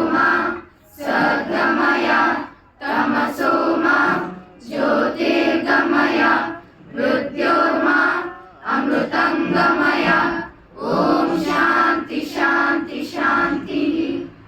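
A large group of schoolchildren singing or chanting a prayer in unison, in about ten short phrases with brief pauses between them.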